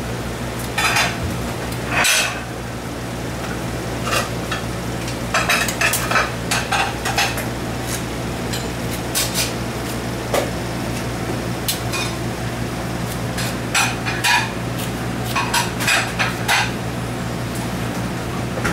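A spoon and a ceramic plate clinking and tapping on a steel counter as food is plated, in scattered light knocks, some in quick runs. A steady low hum runs underneath.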